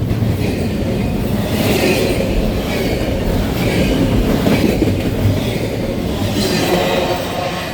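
Freight train cars rolling past, a steady rumble of steel wheels on the rails that eases a little near the end.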